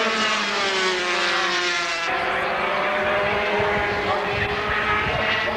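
Two-stroke 250cc Grand Prix racing motorcycles running hard past the track, several engine notes at once, falling in pitch over the first two seconds as they go by and then holding steadier.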